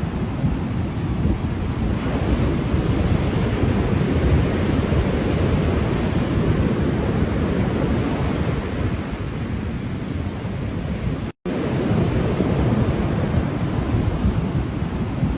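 Ocean surf washing continuously, a steady low rumble of waves with wind buffeting the microphone. The sound cuts out completely for a split second about eleven seconds in.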